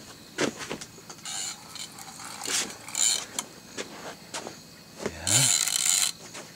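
Fishing reel worked under load while playing a big fish: scattered mechanical clicks and several short rasping runs, the longest and loudest near the end.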